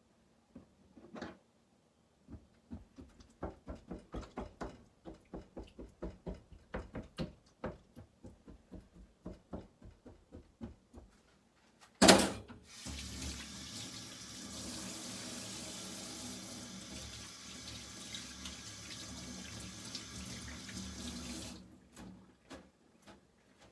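A quick run of short rhythmic sounds, about two a second, then a kitchen tap turned on with a sharp start, running water steadily into a stainless-steel sink for about nine seconds before it is shut off.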